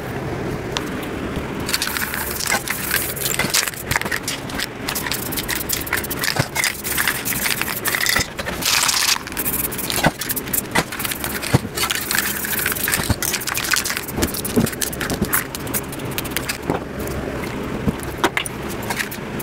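Spray painting: aerosol spray paint hissing in bursts, one longer spray about eight seconds in, among many quick clicks and rattles of cans and tools.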